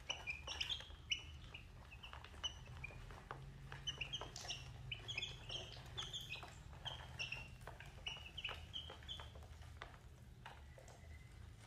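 Baby chicks peeping again and again while they feed, with small sharp taps of beaks pecking crumbs on a plastic tray. The peeps thin out near the end.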